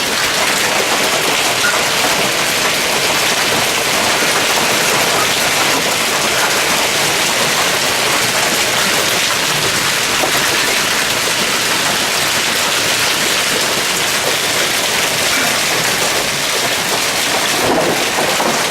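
Heavy rain mixed with hail pouring down in a severe thunderstorm: a loud, steady, dense hiss of drops and hailstones striking.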